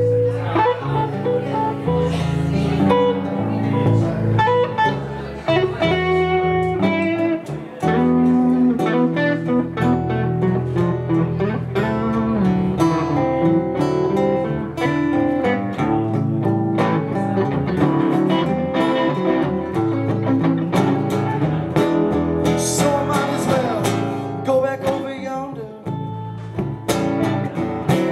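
Live band of electric guitar, electric bass and acoustic guitar playing a song.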